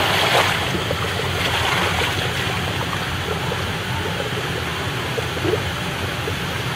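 Water running and spraying down the lanes of an inflatable water slide, a steady rushing with a low hum underneath.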